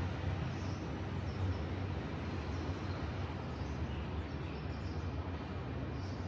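Steady outdoor ambience from a balcony: a continuous low rumble under an even wash of background noise, with faint, short high chirps scattered throughout.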